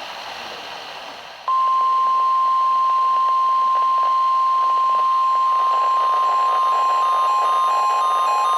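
NOAA Weather Radio 1050 Hz warning alarm tone. It comes in about a second and a half in, after a moment of receiver hiss, and holds one loud steady pitch, marking the start of a new alert broadcast. From about six seconds in, a receiver's own beeping alert pattern sounds over it.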